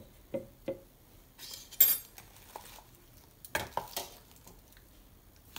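Stainless-steel kitchen utensils (sieve, plate, mixer jar) knocking and clinking together several times as they are handled. The loudest is a sharp ringing clink about two seconds in, and three quick knocks come a little later.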